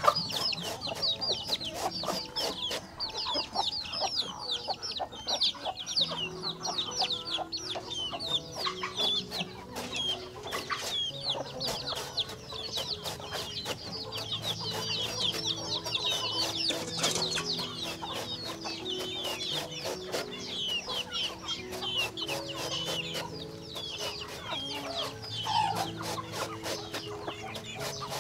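A flock of chickens calling continuously: many overlapping high-pitched peeps and clucks, with soft background music underneath.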